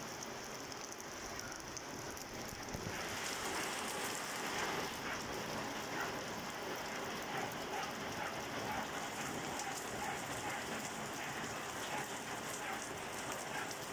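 Rain falling on garden plants and wet paving stones, a steady hiss of many small drops that grows louder about three seconds in.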